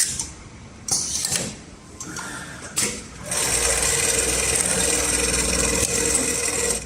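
Industrial pattern sewing machine (HIGHTEX MLK200-3020): a few clicks and knocks, then about three seconds in it starts stitching at a steady speed and runs evenly until it stops near the end.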